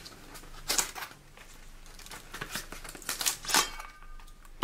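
Small Swiss Army knife slitting open a cardboard box: the cardboard scrapes and tears in several short bursts, loudest about three and a half seconds in.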